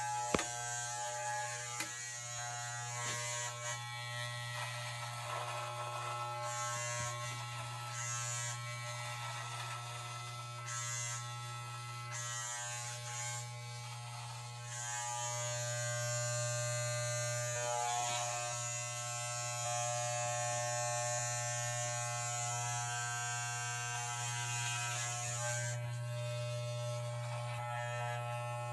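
Electric hair clippers running with a steady buzz, trimming beard hair. A brighter hissing rises and falls over the buzz as the blades move through the hair, most continuous in the second half.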